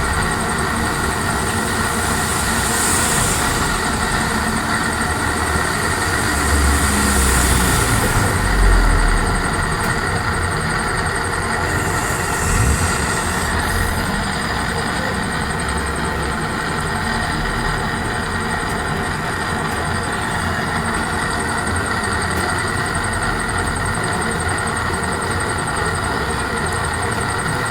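Gas torch flame hissing steadily as it heats the washing machine drum's spider to loosen it from the drum.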